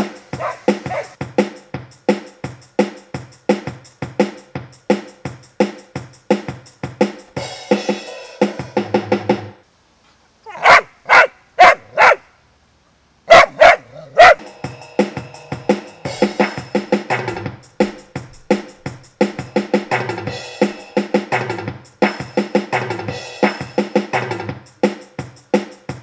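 Background music with a steady drum beat. It stops briefly just past the middle for a dog barking, two quick runs of about four and then three loud barks, before the music picks up again.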